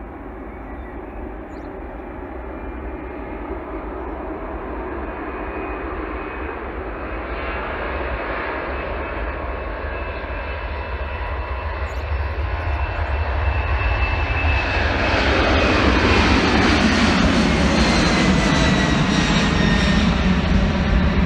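Airbus A300-600 freighter's twin turbofan jet engines growing steadily louder as the aircraft approaches. In the last several seconds, as it passes close, whining tones in the engine noise fall in pitch.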